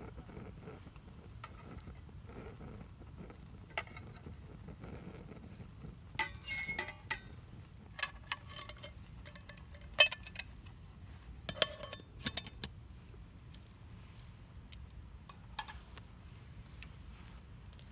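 Utensils clinking and knocking against metal cookware in scattered strokes, busier for a moment about six seconds in, with the sharpest knock about ten seconds in.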